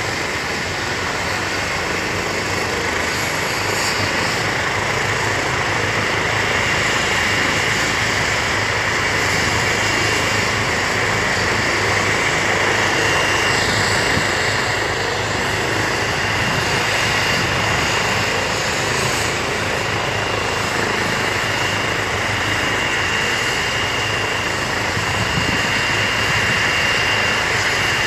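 Air rescue helicopter's turbine engines and rotor running while it stands on the ground before lift-off: a continuous rushing noise with a steady high whine, getting a little louder over the first few seconds and then holding steady.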